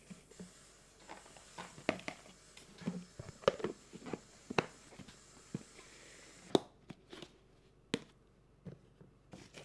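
Light kitchen handling sounds: scattered sharp taps and clicks, about a dozen, irregularly spaced, with quiet room hiss between them.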